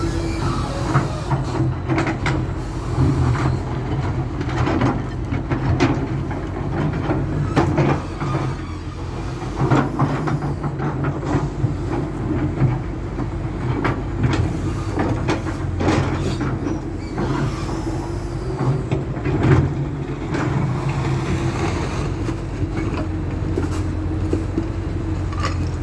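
Excavator's diesel engine running steadily while its bucket breaks up and scrapes asphalt, with frequent sharp knocks and clanks of the bucket against the broken slabs.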